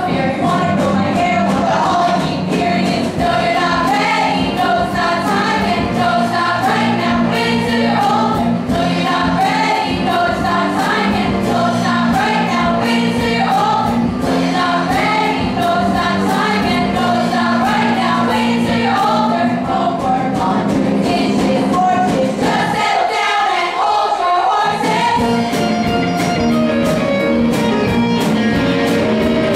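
A large group of voices singing together over instrumental accompaniment with sustained bass notes: a stage-musical ensemble number. The low accompaniment drops out for about two seconds near the end, leaving the voices alone.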